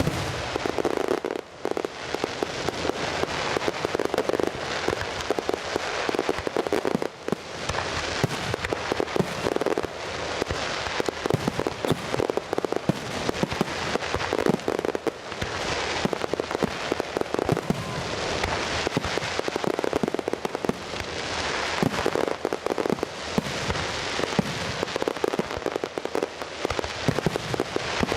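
Fireworks display going off in a dense, continuous barrage: a steady crackle of many small pops and bangs, with louder reports standing out every second or so.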